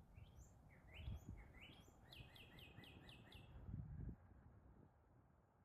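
A songbird singing a run of about ten short falling notes that come faster and faster, then stop about three and a half seconds in. There is a low wind rumble on the microphone.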